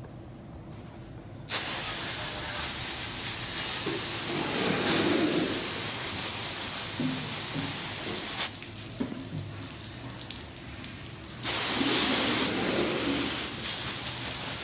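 Hose spraying water against the metal side of a fire engine: a loud, steady hiss of spray that starts about a second and a half in, drops away for a few seconds past the middle, then comes back strong.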